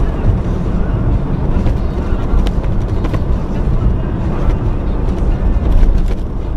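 A vehicle on the move: a steady low rumble of engine and road noise, with a few faint clicks.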